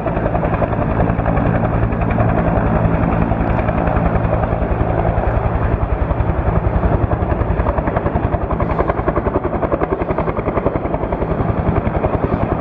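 Helicopter flying in low and close, its rotor chop loud and steady.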